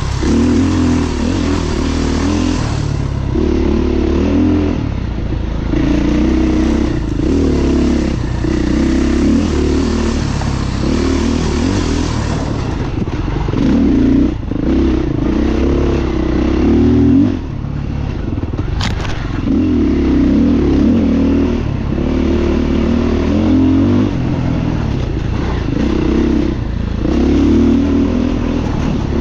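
Beta dirt bike engine riding singletrack, the engine note rising and falling in short stretches as the throttle is opened and rolled off, with a sharp click about two-thirds of the way through.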